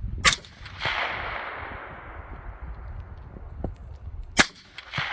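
Two rifle shots from a Ruger SFAR .308 semi-automatic rifle, about four seconds apart. The first report rolls away as a long echo lasting a couple of seconds.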